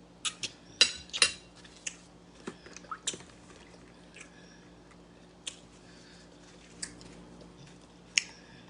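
Close-miked eating: wet mouth clicks and smacks while chewing, with a quick run of sharp clicks in the first second and a half and then single clicks every second or so.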